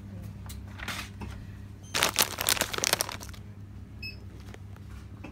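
Plastic packaging crinkling as it is handled: a short crinkle about a second in, then a louder, longer crackle of a little over a second starting about two seconds in, over a steady low hum.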